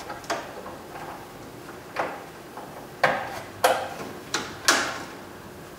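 About six sharp plastic clicks and clacks, bunched mostly in the second half, as the parking-light wiring connectors behind the Chevy Colorado's grille are handled and plugged back in.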